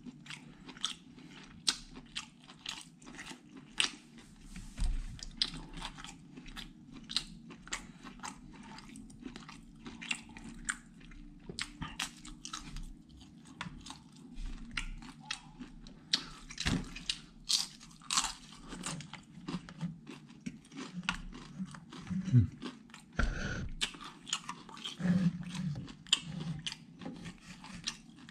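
A person chewing satay close to the microphone: irregular wet, crunchy chewing and lip-smacking sounds, over a low steady hum.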